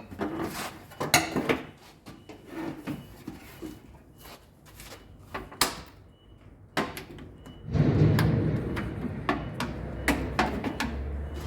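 Knocks and clatter of a front-load washing machine's front cover panel being lifted off and handled, with a louder, longer scraping rumble starting about eight seconds in.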